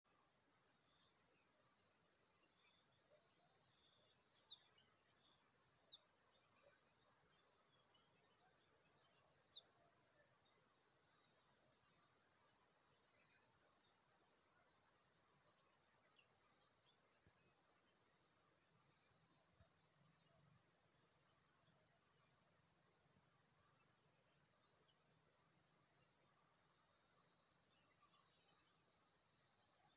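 Faint, steady high-pitched chirring of insects, with a few brief ticks in the first ten seconds.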